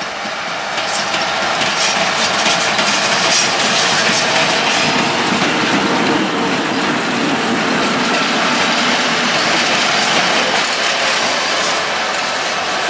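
A class 771 'Čmeliak' diesel locomotive and a 'Bobinka' electric locomotive passing close by: steady wheel-on-rail clatter with short high squeals in the first few seconds and a heavier low rumble through the middle as the locomotive goes past.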